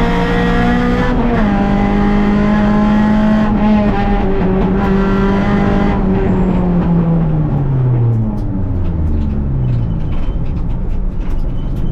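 Rally car engine heard from inside the cabin, held at high revs with one gear change about a second in. From about six seconds the revs fall steadily as the car slows, and a scatter of clicks and rattles comes over the lower engine note near the end.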